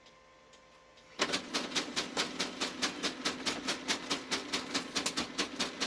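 Brother HL-2240 laser printer feeding a sheet of paper through, with a loud, regular knocking of about five thumps a second over a steady motor hum. It starts about a second in and stops near the end. The thumping during paper feed is the fault being shown, which the owner takes for something not quite right in the gears.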